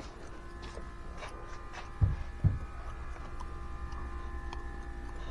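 A steady hum made of several held tones over a low rumble, with two dull thumps about two seconds in.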